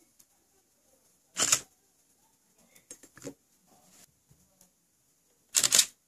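DSLR shutter releasing twice, about four seconds apart, each release a quick double click, fired by a DIY photointerrupter water drop trigger as a falling drop breaks its beam. Fainter small clicks come between them.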